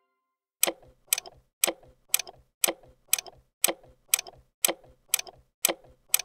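Clock ticking sound effect, sharp ticks at about two a second, starting about half a second in: a quiz countdown timer.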